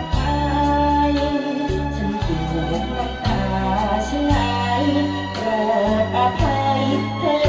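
A young man singing a Thai luk thung song into a handheld microphone over a backing track, his voice carrying a wavering melody above steady, changing bass notes.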